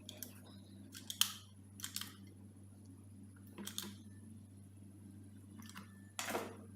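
A handful of short, sharp clicks and brief scraping handling noises, scattered irregularly, about seven in all, over a steady low hum.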